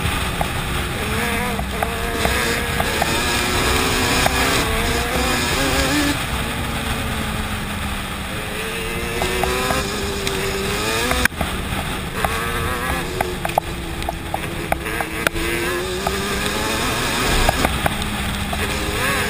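Yamaha Banshee 350's twin-cylinder two-stroke engine running under load, its pitch rising and falling repeatedly as the rider works the throttle and shifts gears, with a brief drop about eleven seconds in.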